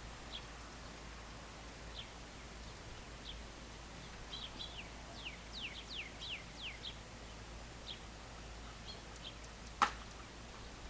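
Songbirds chirping at dusk: scattered short, high chirps, with a quick run of about half a dozen falling notes near the middle. A single sharp click near the end is the loudest sound.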